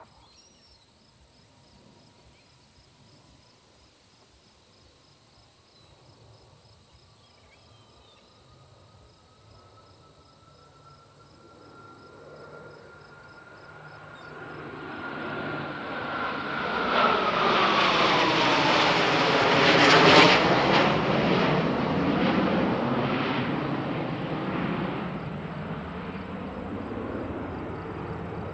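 A formation of six jet fighters flying over. A faint jet whine rises slowly in pitch at first, then the roar builds from about halfway through and is loudest about two-thirds of the way in, its pitch sweeping down as the jets pass, before slowly fading.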